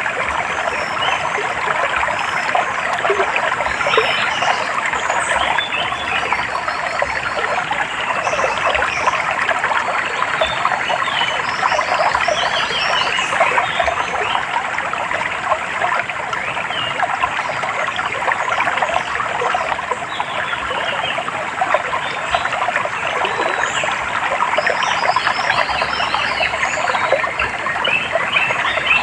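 Water trickling and splashing steadily, with many small birds chirping in quick short phrases over it.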